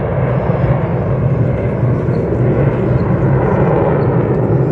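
Jet aircraft of an aerobatic formation flying past in a smoke-trailing pass, a steady deep engine rumble.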